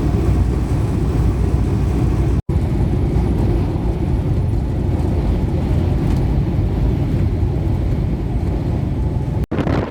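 Steady low road and engine rumble of a moving vehicle heard from inside, broken by two momentary drop-outs, about two and a half seconds in and near the end.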